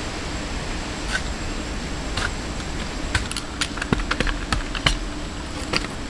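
A hand tool tapping and knocking in quick, irregular strokes, a run of sharp clicks about three to five seconds in, over a steady background hum.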